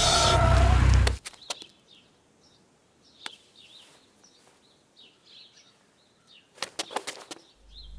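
Film background music cuts off about a second in, leaving faint outdoor ambience with small birds chirping. A few sharp clicks sound, several in quick succession near the end, and then a low music drone comes in.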